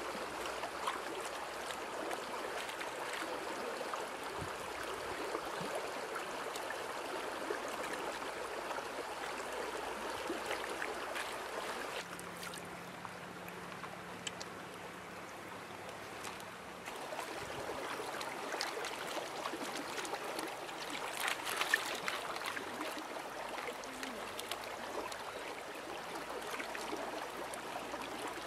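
Shallow stream running over stones: a steady rush of water, briefly louder about three-quarters of the way through.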